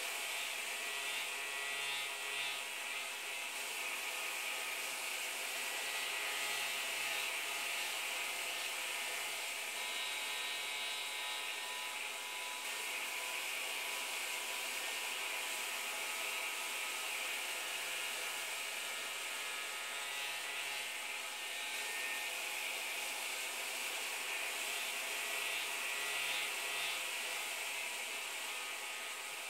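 Steady, even hiss of background noise with a faint low hum that comes and goes; no distinct events.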